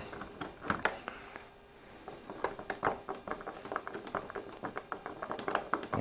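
Hand screwdriver backing a fine-threaded screw out of a brass doorknob: light, irregular clicks and ticks of the driver tip and the loosening knob hardware, growing more frequent after about two seconds.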